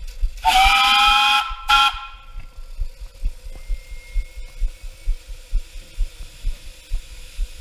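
Steam whistle of the 15-inch-gauge Pacific locomotive Green Goddess, heard from its cab: a loud chord-like blast of about a second and a brief second toot, dying away about two seconds in. A faint steady hum and low thumps follow.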